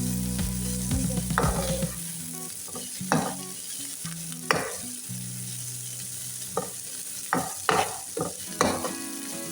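Onions and green pepper sizzling in hot oil in a pan while a spoon stirs them, knocking and scraping against the pan several times in the second half.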